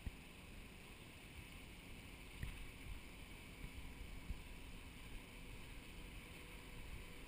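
Faint low drone of a water taxi's engine across the water, over a low fuzzy rumble, with a few soft low thumps.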